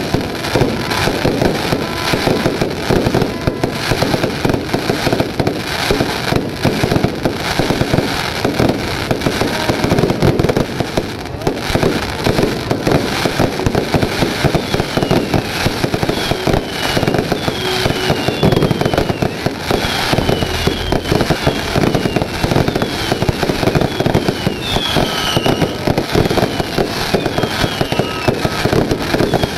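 Fireworks display with a continuous rapid barrage of bangs and crackling. From about halfway through, short falling whistles repeat roughly once a second over the barrage.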